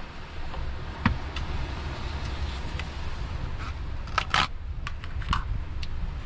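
A spoon clicking and scraping against plastic containers and a bowl during eating, with a sharp click about a second in and a cluster of louder clicks around four seconds in, over a low wind rumble on the microphone.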